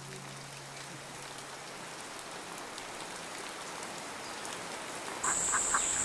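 Steady rain falling on foliage. About five seconds in, a high steady drone and short calls from chickens and ducks come in.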